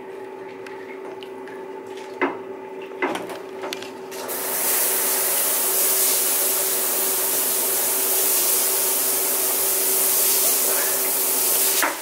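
Seoul Stone handheld shower head spraying water onto tile on its smaller-splash setting: an even hiss that starts about four seconds in and stops abruptly near the end. Two sharp clicks come before it, over a steady low hum.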